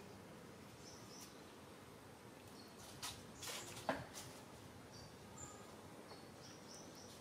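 Faint outdoor background with scattered short, high bird chirps. A few brief noises come about three to four seconds in, the loudest a sharp sound that sweeps quickly down in pitch.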